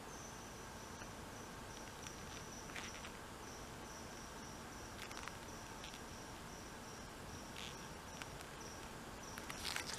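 Faint, steady high-pitched insect trill, breaking off briefly now and then, over a soft outdoor hiss, with a few soft rustles.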